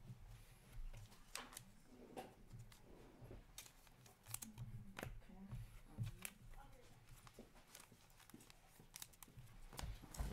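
Faint, scattered clicks and light rustles of hockey trading cards being handled and flipped one behind another in the hands.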